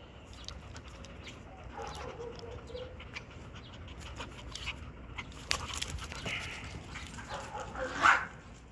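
Small dogs at play: a drawn-out whine about two seconds in and a loud short yip near the end, with scattered light clicks between.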